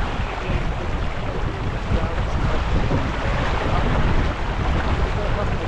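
Wind buffeting the microphone over the steady rush of water along a racing sailing yacht's hull as it sails fast.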